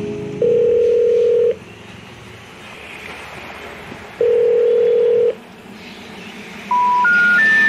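Telephone line tones: two long, steady, low beeps about three seconds apart, then near the end three short beeps stepping up in pitch, the special information tone that comes before a 'number not in service' type announcement.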